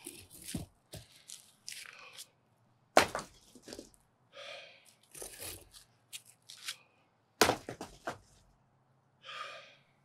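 Two hard sledgehammer blows on concrete sidewalk slabs, about three and seven seconds in, with smaller scrapes and knocks of broken concrete between them. The laborer breathes heavily twice after the blows.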